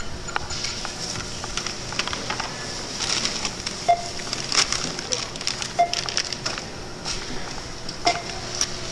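Supermarket checkout noise: groceries and packaging being handled with clatters and crinkles, and a short electronic beep from the checkout three times, about two seconds apart.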